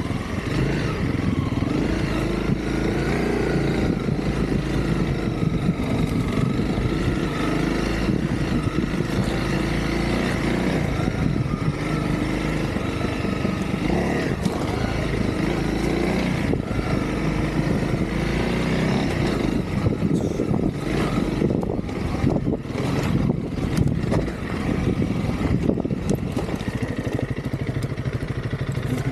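Honda CRF300L's single-cylinder four-stroke engine running under way, its pitch rising and falling with the throttle over steady riding noise. A run of sharp knocks comes between about 20 and 25 seconds in.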